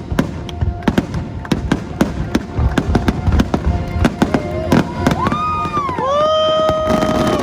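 Fireworks going off, many sharp bangs and crackles in quick succession, over the fireworks show's music soundtrack.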